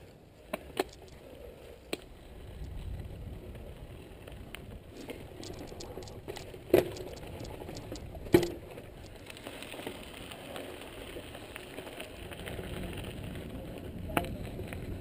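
Mountain bike ridden over a rough, rocky dirt trail: steady tyre and trail noise with rattling, and two loud knocks about a second and a half apart partway through.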